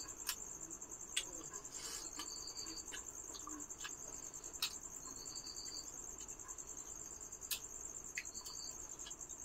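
Crickets trilling in one steady high, pulsing tone, with a second, lower insect call coming in short stretches about every three seconds. A few faint clicks from hand-eating off plates come through now and then.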